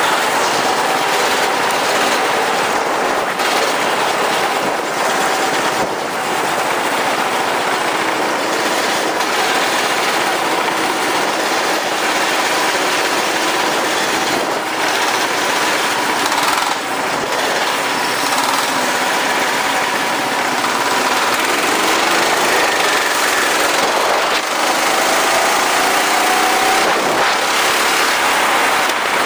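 Go-kart engine running hard with a loud, dense rattling drone, its pitch rising and falling as it speeds up and slows.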